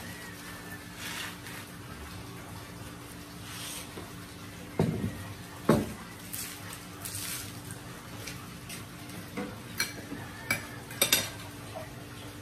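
Dishes and cutlery clinking on a table: two dull knocks about five seconds in, then several sharp clinks near the end, over a steady low hum.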